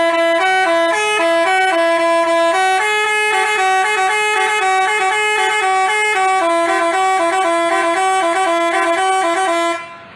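Basuri telolet bus horn, a multi-tone musical horn, playing a quick tune of stepping notes, and cutting off just before the end.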